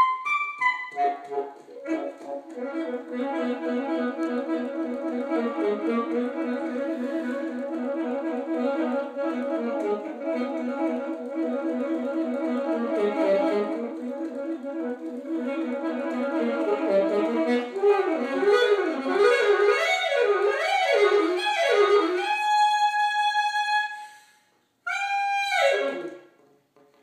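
Solo alto saxophone playing fast repeated figures, then quick up-and-down runs into a long held high note. After a brief break, a last note slides steeply downward near the end.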